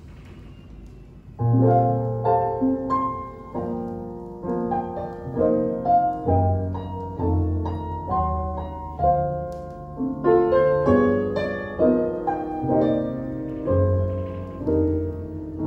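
Piano intro of a song played from a vinyl record through hi-fi bookshelf speakers and heard in the room. A low hiss comes first, and the piano comes in about a second and a half in with struck chords over deep bass notes.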